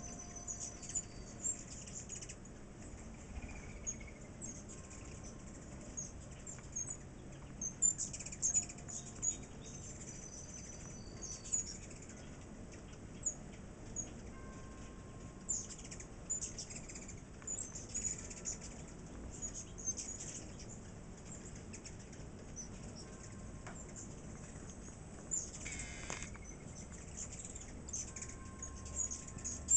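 A crowd of ruby-throated hummingbirds squabbling at a nectar feeder: rapid, very high-pitched chips and chitters come in clusters, many per second, along with the whir of wings as birds dart in close.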